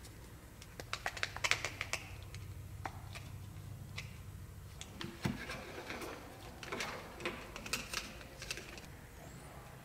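Plastic fashion dolls being handled make light clicking and tapping sounds as they knock together and against the table. There is a flurry of clicks about a second in and another from about five to eight seconds in.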